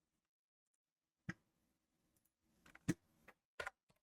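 A few separate sharp clicks of a computer mouse, the loudest about three seconds in, with near silence between them.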